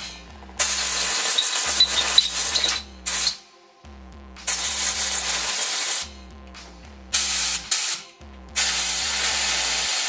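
Compressed-air blow gun blasting air into the vents of a DWT WS-125L angle grinder to blow dust out of its housing. There are about six bursts of loud hiss: some last one to two seconds, others are short puffs, and the last one runs on.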